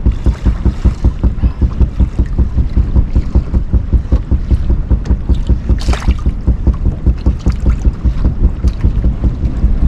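Wind rumbling on the microphone and water slapping the hull of a small fishing boat, a low rumble pulsing about four times a second. A short sharp noise cuts through about six seconds in.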